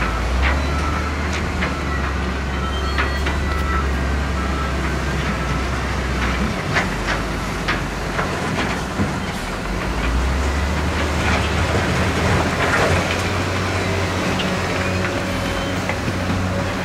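Heavy diesel earthmoving machine engine running with a deep steady drone. The drone eases off for a few seconds midway and then picks up again, with scattered sharp metallic knocks while it is lower and a faint high whine in the first few seconds.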